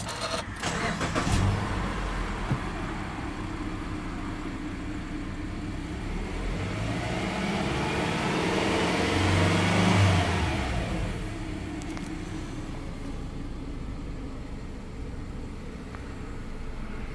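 Subaru Legacy 2.5i's EJ25 flat-four engine being started, heard from inside the cabin: the starter cranks briefly and the engine catches about a second in, then runs at a raised idle. The revs climb gently to a peak about ten seconds in and settle back down.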